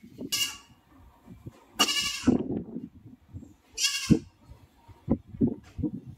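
Goat bleating three times, the middle bleat the longest, followed by a few soft thumps near the end.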